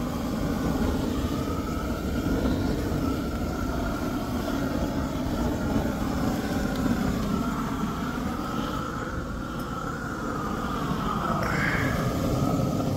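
Hand-held gas torch burning with a steady rushing noise and a hollow tone that drifts slowly up and down, its flame played over the earthbag wall to burn off the plastic sacks.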